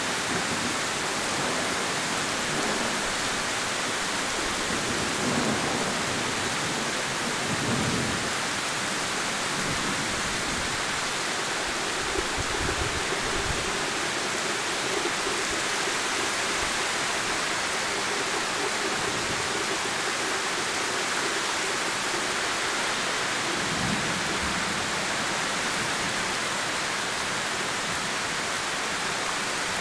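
Heavy rain pouring steadily onto trees and ground, an even hiss, with a few low rumbles of thunder rising and fading at times.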